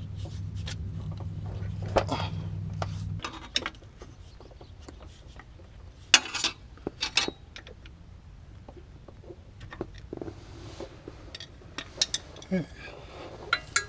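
Scattered metal clinks and knocks of a Haldex all-wheel-drive pump being rocked back and forth by hand to work it loose from its housing. A low steady hum runs underneath and cuts off about three seconds in.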